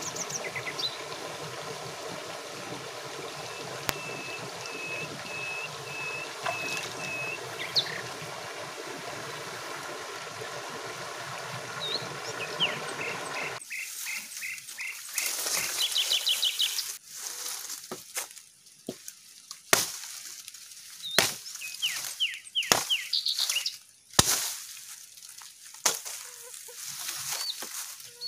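A stream runs steadily while small birds call, one repeating a short note about six times. About halfway through the sound cuts to bird calls over irregular sharp knocks and cracks, the loudest sounds in the stretch.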